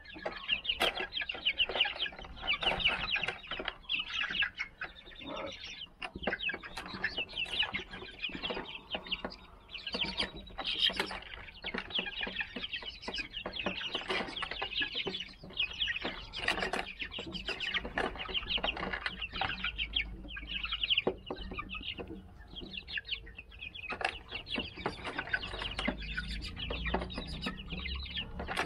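A flock of 39-day-old silver laced Wyandotte chicks keeping up a steady chorus of high, overlapping peeping calls, with scattered short clicks.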